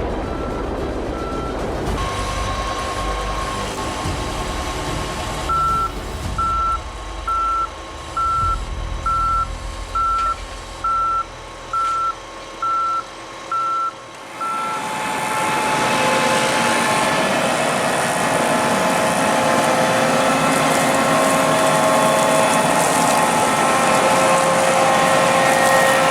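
A vehicle's reversing alarm beeping steadily, about once a second, over an engine's running rumble. About halfway through, the beeping stops and a louder, steady mechanical running noise takes over.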